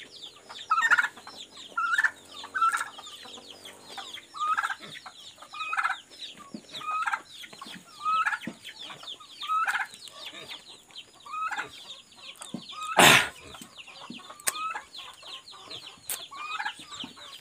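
Chickens clucking, short calls repeated about once a second, with one brief, loud burst of noise about thirteen seconds in.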